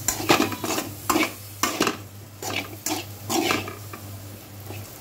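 Metal spatula scraping and knocking against a metal kadai as a dry chicken pepper fry is stirred, in irregular strokes about two or three a second.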